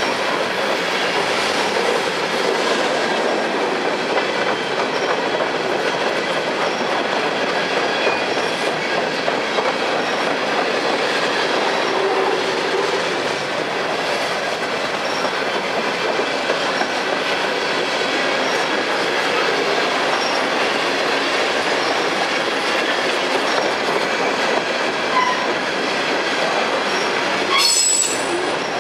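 A slow freight train of empty coal hopper cars rolling past, a steady rumble and clatter of wheels on the rails with faint high wheel squeal. A brief, sharper clank comes near the end.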